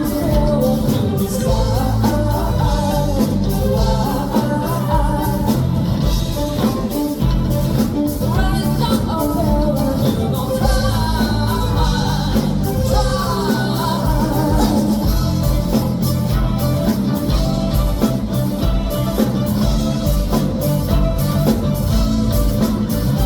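Live rock band music with singing over it.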